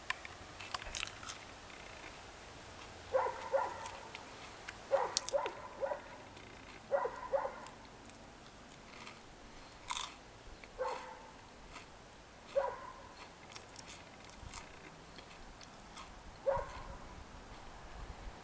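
A dog barking repeatedly: three clusters of two or three quick barks, then single barks every couple of seconds. A few sharp crunches sound close by, from someone eating a snack.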